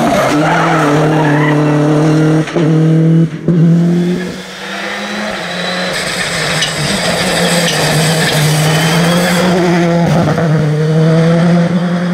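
Rally cars at speed on a stage: one car's engine revving hard with two brief dips about two and a half and three and a half seconds in, a short quieter lull, then a second car, a Citroën C3 rally car, approaching with its engine held at high revs.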